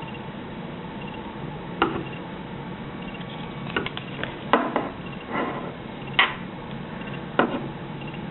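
Scattered clicks and light knocks of a paring knife being repositioned in the blade clamp of a Smith's sharpening system, about half a dozen sharp taps spread over several seconds as the blade is reseated before the clamp is tightened.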